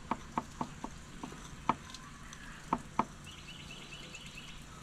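Light, irregular clicks and taps, about eight in the first three seconds, from a fillet knife working inside a flounder on a cleaning table. A bird chirps faintly several times in quick succession near the end.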